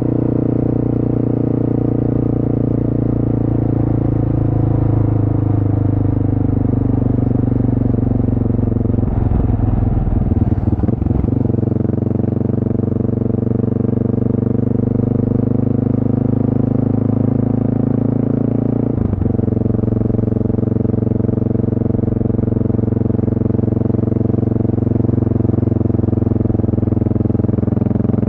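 1988 Honda NX650 Dominator's single-cylinder engine running under way, its pitch rising and easing slightly. It goes rough and uneven for about two seconds around ten seconds in, and there is a short break in the engine note about nineteen seconds in.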